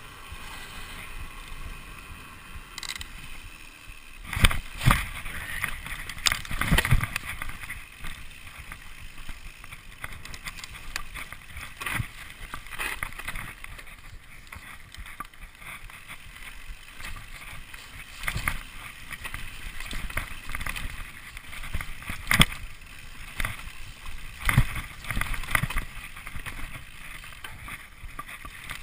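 Mountain bike riding down a dirt trail: steady tyre and wind noise with frequent sharp knocks and rattles as the bike hits bumps, the loudest about four and a half seconds in and again around twenty-two seconds.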